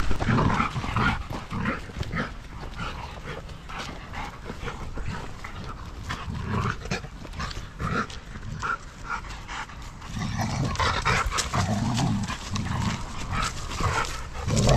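A pack of dogs moving and scuffling together: rustling, scuffing steps and panting, with a livelier, louder stretch of dog activity from about ten seconds in.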